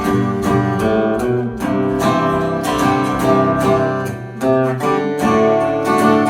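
Acoustic guitar strummed in a steady rhythm, an instrumental break between verses of a folk song with no singing.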